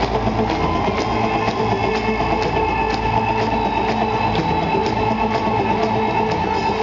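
Live arena concert music over the PA, recorded from the audience, with drums keeping a steady beat.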